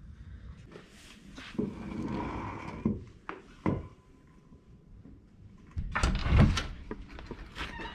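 Knocks and clanks of the heavy driveshaft and viscous coupler assembly being worked free from under the car, ending in a cluster of loud heavy thuds about six seconds in.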